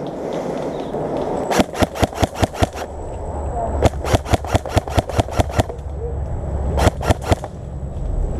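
Airsoft gun firing three quick strings of shots, about six a second: about eight shots from a second and a half in, about ten more from about four seconds in, and three or four near the end. Wind rushes steadily on the microphone underneath.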